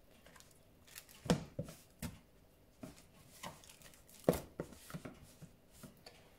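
Hands turning slices of spice-coated corned beef over in a plastic tub: soft, irregular handling sounds of meat and rub against plastic, with two louder knocks, about a second in and just past four seconds in.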